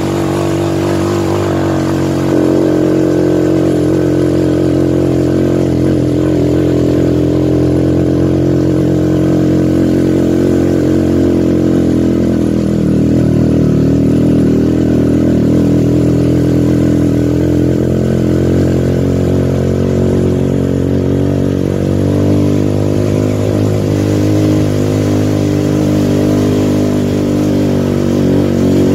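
Motorcycle engine running steadily under way, its pitch dipping and rising slightly about halfway through.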